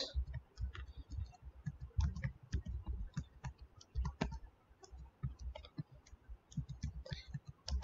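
Computer keyboard keys clicking irregularly, several keystrokes a second with dull low knocks, from copy-pasting code and moving the cursor between lines.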